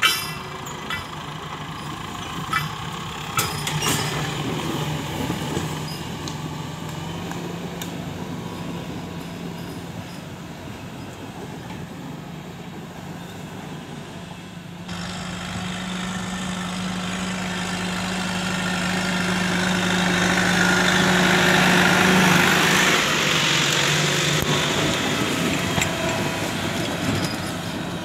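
Ford 7740 tractor's diesel engine running steadily under load as it pulls a three-disc plough through hard, dry ground. It grows louder through the second half, with added hiss.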